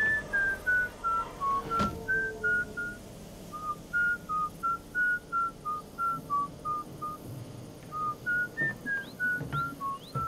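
A man whistling a slow, wandering tune, one clear note after another, stepping up and down in pitch. A few short knocks sound under it, one about two seconds in and several near the end.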